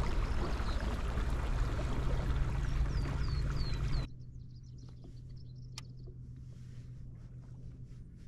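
Fishing kayak running under motor power: a steady low hum with water and wind rushing past, and a few bird chirps over it. About four seconds in it stops abruptly, leaving quiet water and occasional bird calls.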